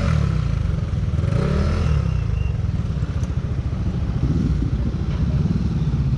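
Motorcycle engine running with a steady low rumble, its pitch rising slightly about four seconds in.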